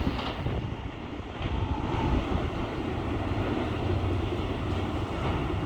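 Steady noise of a freight train of autorack cars rolling past, with wind on the microphone.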